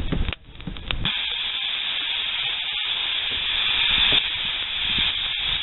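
Steam hissing steadily from a small wood-fired vertical boiler as it vents, starting about a second in.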